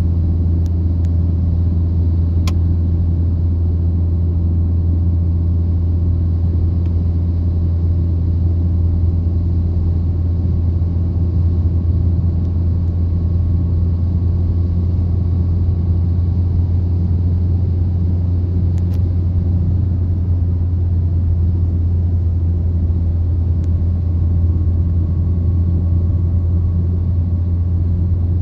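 Steady low drone of a car's engine and tyres on the road, heard from inside the cabin while cruising at highway speed.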